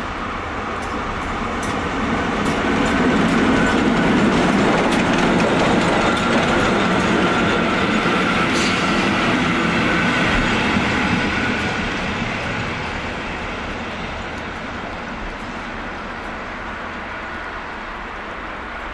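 Steam locomotive Speyerbach and its passenger coaches passing close by on the rails. The rumble and clatter of the train swell about three seconds in, stay loud while the coaches go past, then fade after about twelve seconds as the train draws away.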